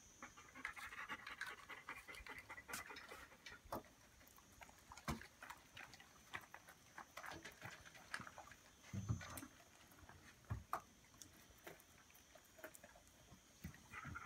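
German shepherd panting softly, with scattered faint clicks and a few soft low thumps.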